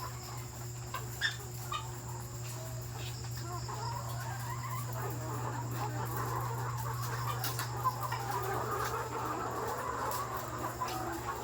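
A flock of layer hens clucking, the calls growing busier in the second half, over a steady low hum. A few sharp clicks stand out, the loudest about a second in and near eight seconds.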